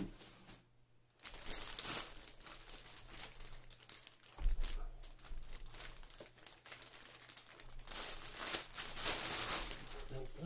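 Clear plastic packaging bag crinkling and rustling as a flat-screen monitor is slid out of it, loudest near the end, with a dull thump about four and a half seconds in.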